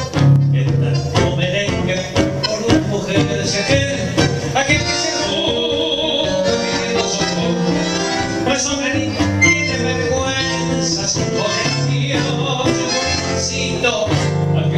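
Two acoustic guitars playing an instrumental tango passage, a plucked melody running over a moving bass line, between the sung verses.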